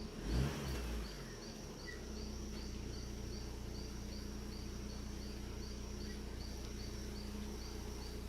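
Insects chirping in the background: a regular high chirp repeating about twice a second over a steady high drone, with a brief low rumble in the first second.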